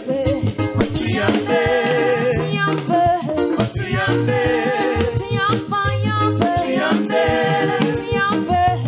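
Gospel song: singing voices over backing music with a steady bass line and regular percussion strokes.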